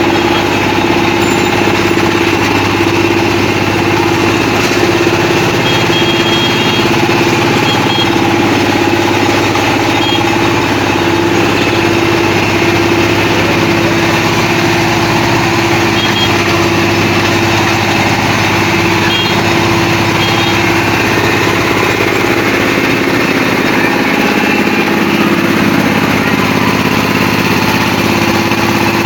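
ACI combine harvester running steadily at an even engine speed.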